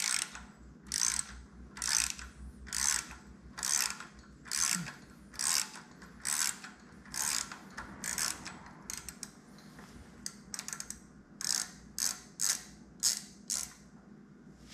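Hand ratchet with a 3/16-inch hex bit clicking on each back-swing as a bolt on a Harley-Davidson's air-cleaner bracket is backed out. Short runs of clicks about once a second, with a brief pause past the middle and quicker strokes near the end.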